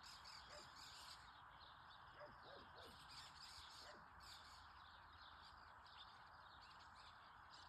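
Faint wild bird calls: scattered short chirps and a few brief falling calls, over a steady background hiss.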